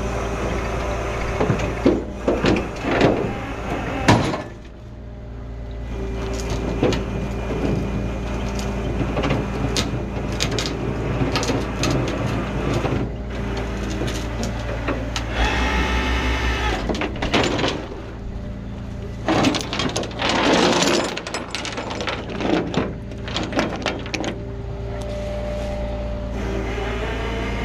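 Rollback tow truck's engine running steadily, with irregular metal clanks and scraping from the burned-out car wreck being handled on the tilted bed. The heaviest knocks come early and again about twenty seconds in, and a brief squeal comes midway.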